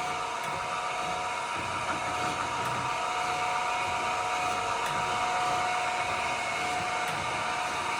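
Chevalier FSG-3A1224H hydraulic surface grinder running its automatic cycle. The spindle and hydraulic unit make a steady whine over a hiss as the wheel grinds a small part at a one-thousandth-inch down increment per pass. A faint tick comes about every two seconds.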